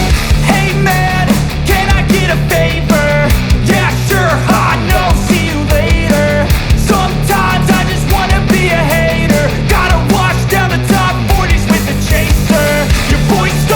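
Background music: an upbeat rock track with a steady drum beat and a melodic lead line.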